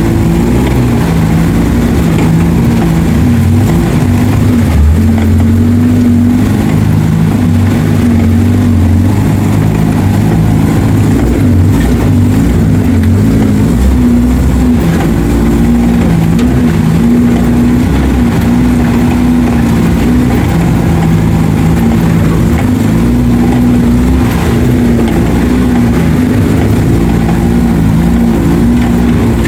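Off-road 4x4's engine running steadily, its pitch stepping up and down every second or two as the throttle changes.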